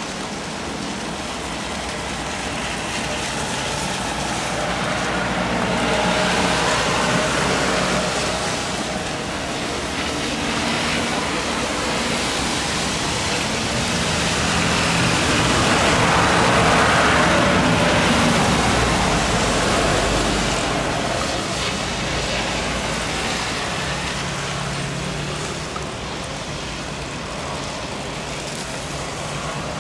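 Batik Air Airbus A320 landing on a wet runway: jet engine noise mixed with the hiss of water spray, swelling to its loudest about halfway through as the plane rolls out, then easing off.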